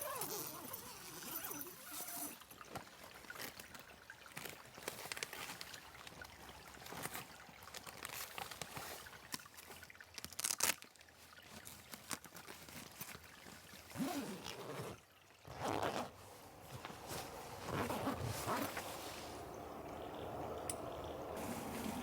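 Camp cooking and meal handling sounds: scattered clinks and knocks of utensils and cookware, with liquid trickling or being poured.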